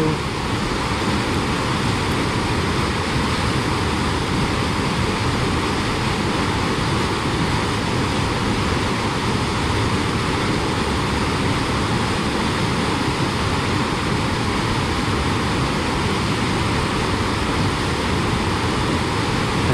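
Whitewater of a mountain creek rushing over rocks: a steady, even roar with no let-up.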